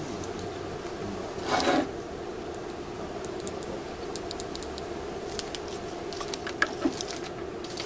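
Hands handling a mains plug and multimeter test probe: a short scraping rustle about a second and a half in, then scattered small clicks, over a steady hum.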